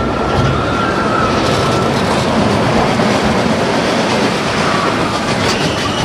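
A train car running along its track with a steady rumble and clatter, and a faint thin wheel squeal over the first two seconds.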